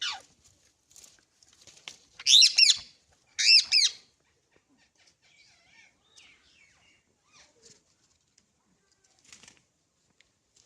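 Pet rose-ringed parakeet (Indian ringneck) calling. A call sweeps down in pitch right at the start, then two loud, harsh, warbling screeches come about two and three and a half seconds in. Faint chirps follow.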